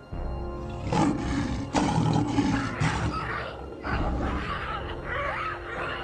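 Lion growling and roaring in a scuffle in a tree, with sudden loud hits early on and shrill wavering cries in the second half, over background music.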